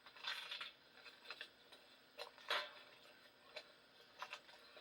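A few faint, irregular clicks and rustles, a handful of short, separate ticks spread over a few seconds.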